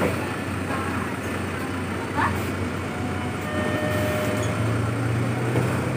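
City bus idling at a stop, a steady low engine hum. About three seconds in, a brief electronic tone sounds in two short notes.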